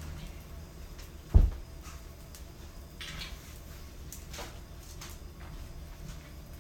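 A single heavy thump about a second and a half in, followed by a few faint knocks and clicks.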